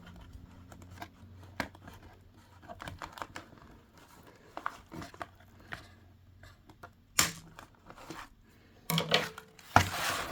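Small clicks, taps and crinkles of doll packaging being handled while the threads and plastic anchors holding the doll are cut and pulled free. There is a louder rustle about seven seconds in and a run of louder crinkling and tearing near the end.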